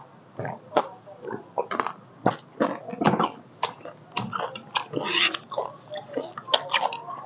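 Close-miked chewing of chatpate, a spiced puffed-rice snack: irregular crunches and mouth smacks, with a metal spoon scraping the plate near the end.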